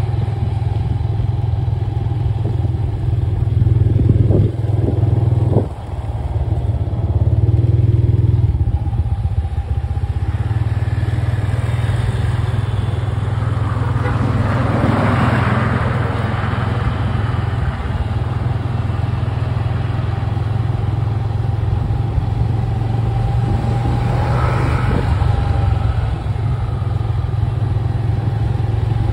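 Motorcycle engine running at a steady, slow cruise, heard from the rider's seat as a constant low hum. Louder swells about halfway through and again near the end come from other motorcycles on the road.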